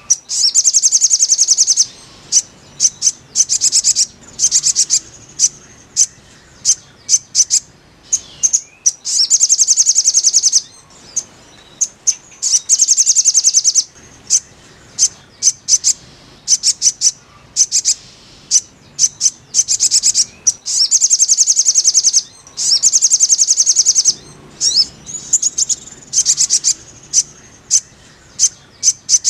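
Crimson sunbird (sogon) song: high, fast trills lasting a second or two, alternating with runs of separate sharp chips.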